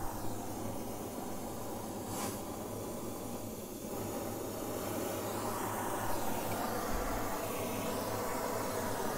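Gas torch flame hissing steadily while it heats a cast foot-peg mount on a steel motorcycle frame.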